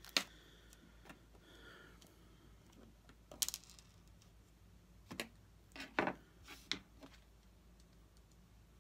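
Small RC truck parts clicking and clinking as they are handled: about five short, sharp clicks spread out, with quiet between them.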